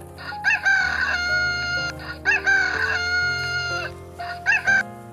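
Rooster crowing: two long crows, each rising at the start and then held about a second and a half, then two short calls near the end, over background music.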